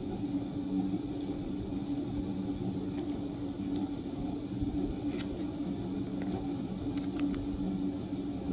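Steady low hum of machine or electrical background noise, with a few faint clicks from the cardboard box being handled, about five and seven seconds in.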